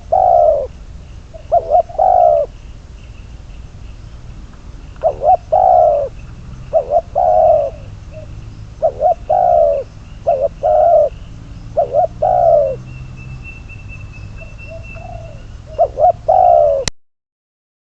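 Spotted dove cooing: about eight repeated phrases, each of a couple of short notes followed by a longer falling coo. The sound cuts off suddenly near the end.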